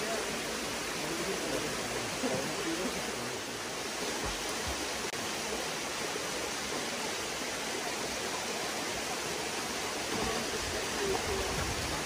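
Steady rush of water from a waterfall and stream, with faint voices in the background at times.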